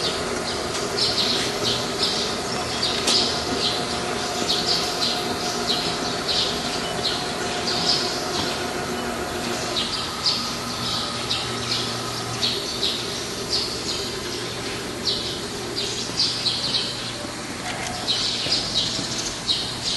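Small birds chirping over and over, short high chirps, over a steady machine hum. A higher steady tone in the hum stops about halfway through, and a low hum carries on.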